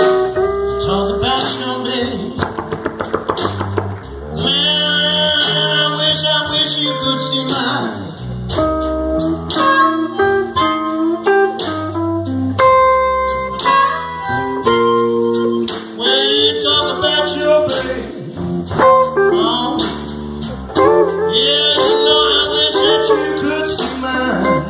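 Live blues band playing an instrumental break. A harmonica, cupped to the vocal microphone, wails with bent notes and a fast warbling trill over electric guitar, electric bass and drums.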